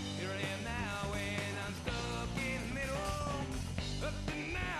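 Background rock music.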